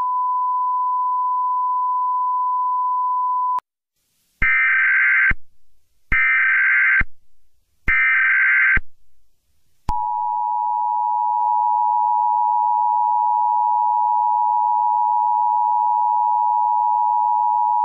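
Emergency Alert System tones: a steady single beep for about three and a half seconds, then three one-second bursts of warbling SAME header data, then the two-tone EAS attention signal starting about ten seconds in and holding steady.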